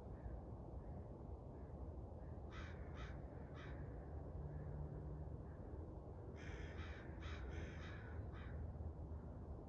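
A bird calling with harsh, crow-like caws: three calls about two and a half seconds in, then a quicker run of calls from about six seconds in. A steady low background hum runs underneath.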